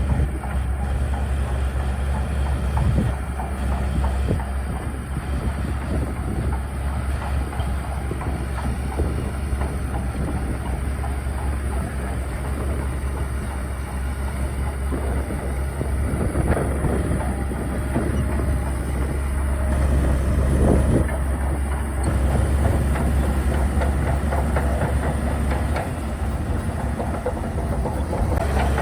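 Shantui DH17C2 crawler bulldozer working: its diesel engine running steadily under a continuous clatter of steel tracks, with a few louder knocks.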